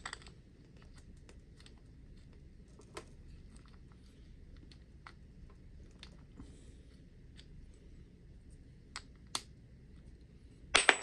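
Small clicks and taps of hands handling a radio-controlled car's plastic wheel and the parts of its hub. The clicks are sparse and light at first, with a louder cluster of sharp clicks near the end.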